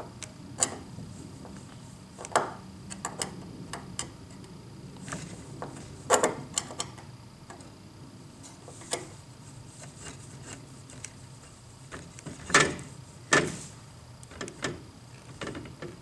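Screwdriver turning a ground screw in a steel electrical box, with scattered metallic clicks and taps of tool and wire against the box. The loudest taps come about six seconds in and twice near the end.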